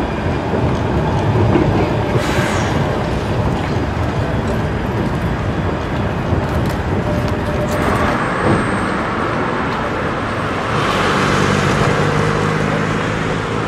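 Street traffic: a tram rolling away at the start, then cars driving past, one passing close from about 11 to 13 seconds in with its engine hum plainly heard.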